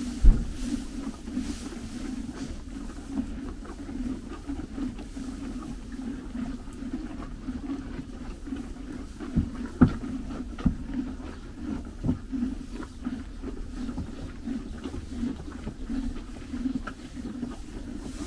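Horses chewing hay at a metal hay feeder: steady rhythmic crunching and grinding with hay rustling, broken by a few sharp knocks, the loudest just after the start and about ten seconds in.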